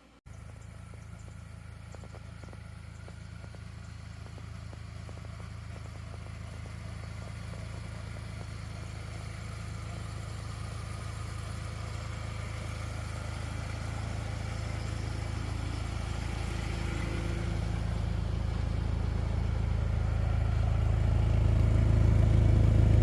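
Steady low mechanical hum that starts abruptly and grows steadily louder throughout.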